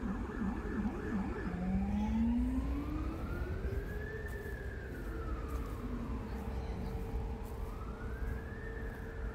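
Emergency vehicle siren sounding over city traffic, switching from a fast yelp to a slow wail about a second and a half in; the wail rises and falls twice. Steady traffic rumble underneath.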